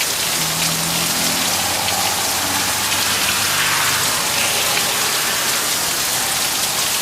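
Heavy rain pouring down steadily: very loud rain.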